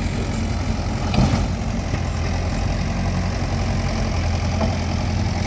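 Mahindra 585 tractor's diesel engine running steadily while it powers the hydraulic tipper of a raised trolley dumping soil, with a single thump about a second in.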